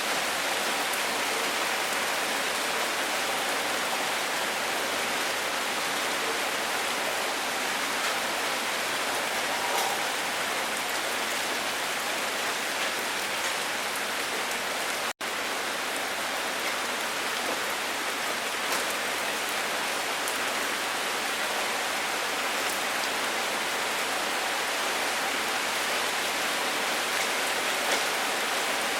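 Steady rain falling on a surface, an even hiss with faint scattered drop ticks. It cuts out for an instant about halfway through and comes straight back.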